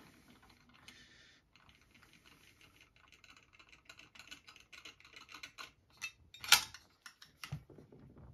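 Light clicks and clinks of a hand tool working a cylinder bolt loose on a Husqvarna 257 chainsaw, quick small ticks that grow busier partway through, with one sharper click about six and a half seconds in.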